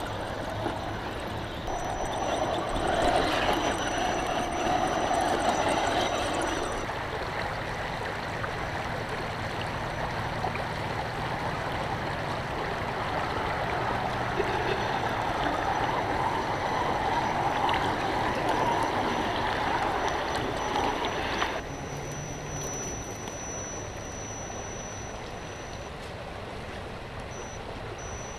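Shallow river water rushing and splashing around an Axial SCX-10 Honcho RC crawler as its small electric motor drives it through the stream. The sound shifts abruptly and gets quieter about two-thirds of the way through.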